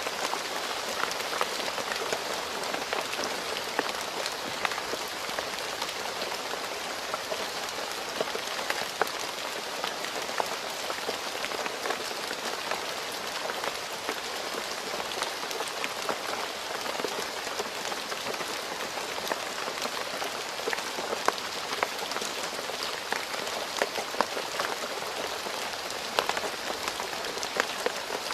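Steady rain falling on a road: a continuous even hiss, with many individual drops ticking through it.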